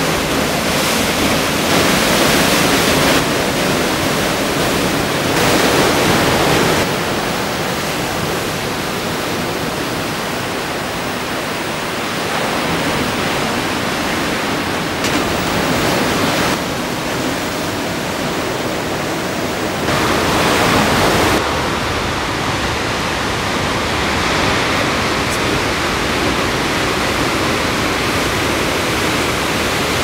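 Ocean surf: the steady rushing noise of large breaking waves, with abrupt jumps up and down in loudness at several points.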